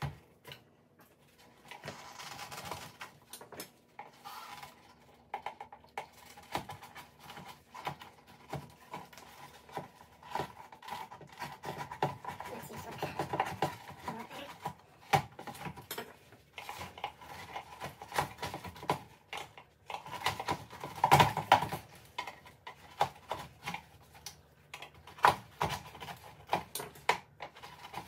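A metal pick scraping and prying old, oven-softened glue out of the lens channel of a Mercedes G63's plastic headlight housing: a run of irregular scratches, clicks and small knocks, loudest a little past the two-thirds mark, over a faint steady hum.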